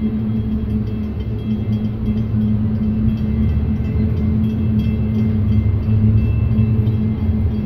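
Boat engines rumbling steadily with a low hum, growing a little louder about three seconds in.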